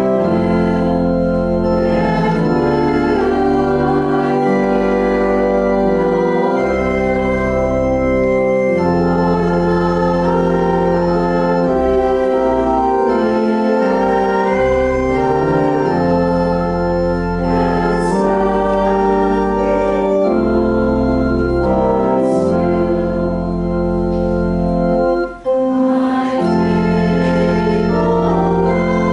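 Church organ playing a slow piece in sustained chords over long held bass notes, with a brief break near the end.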